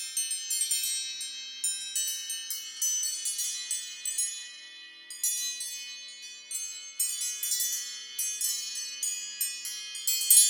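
An Apple iPhone ringtone of high, bell-like chime notes struck in quick runs, the phrase repeating about every five seconds.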